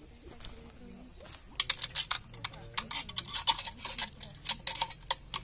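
A metal snake hook clinking and scraping against a ceramic squat toilet pan as it probes through the dirt and leaves inside. It starts about a second and a half in as a quick, irregular run of sharp clicks and scrapes.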